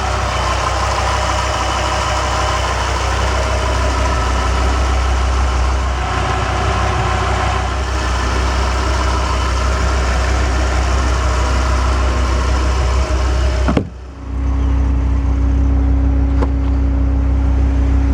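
Dodge Viper RT/10's 8.0-litre V10 idling steadily, a deep even rumble, with a brief break about fourteen seconds in after which the idle carries on with a steady hum over it.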